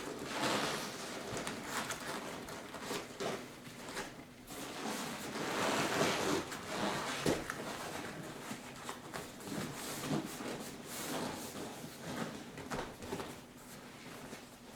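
A seat cover being pulled and worked by hand over the foam of a car seat: irregular rustling, rubbing and scraping with small clicks and knocks.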